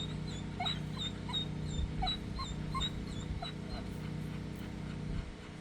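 Dog whining in short, high-pitched, repeated whimpers, about two a second, over a steady low hum.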